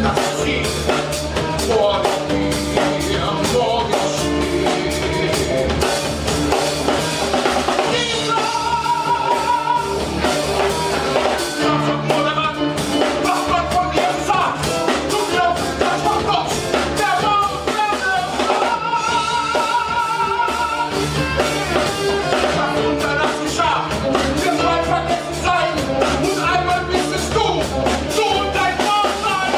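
A male singer with a live band of drum kit and guitar. He holds long notes with a wide vibrato over a steady drum beat.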